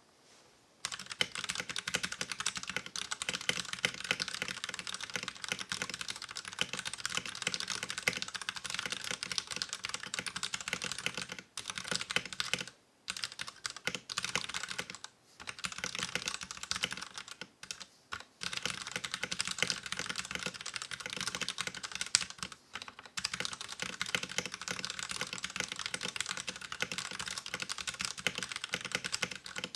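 Fast typing on a mechanical keyboard: an LTC Nimbleback 65% with a plastic case and metal plate, stock 60 g Akko Purple linear switches and thin ABS keycaps. A dense run of keystroke clacks starts about a second in and breaks off for a few brief pauses.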